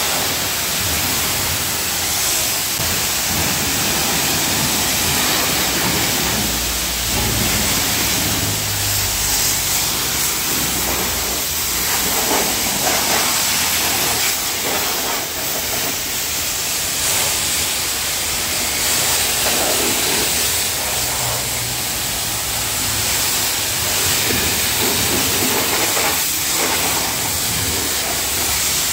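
High-pressure washer jet spraying water against a car's wheel, bumper and wing and the wet concrete floor: a steady, continuous hiss with splashing.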